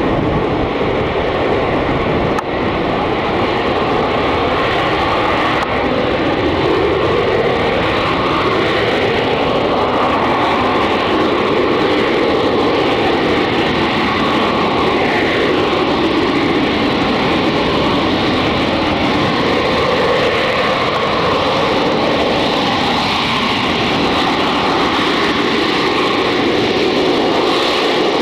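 Rolls-Royce Pegasus turbofan of an AV-8B Harrier II jump jet running loud and steady, a continuous jet roar with a steady whine held through it and slow, slight swells in level.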